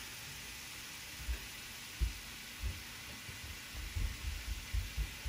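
Tomato sauce frying in a pan with a faint steady sizzle, and a run of soft low thumps, most of them in the second half, as black pepper is shaken in over it.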